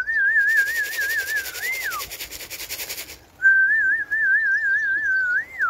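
A person whistles two long calls to bring Birmingham Roller pigeons into the loft. Each call is a wavering, warbling note that ends with a quick rise and drop in pitch. A fast, even rattle runs under the first call.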